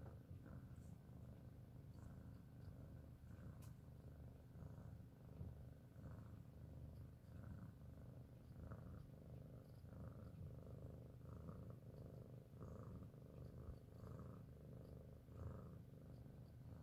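Domestic cat purring steadily, a faint low rumble.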